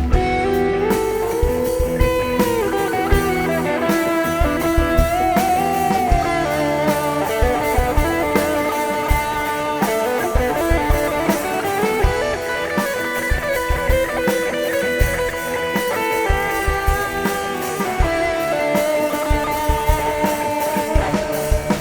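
Live rock band playing an instrumental break between sung verses: a lead guitar line with bending notes over drums and bass, played through the stage sound system.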